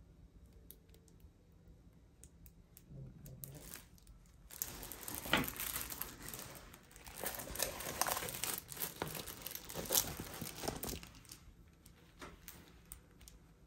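Diamond painting canvas under its clear plastic cover film crinkling and rustling as it is handled. The crinkling starts about a third of the way in and runs for roughly six seconds, after a few faint clicks.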